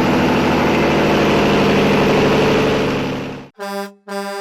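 A vehicle engine running steadily at a constant speed, cutting off abruptly about three and a half seconds in, followed by two short horn honks.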